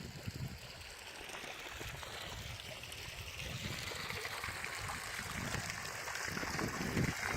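Rushing rainwater, a steady hiss of flowing water that grows louder over the second half, with low buffeting at times.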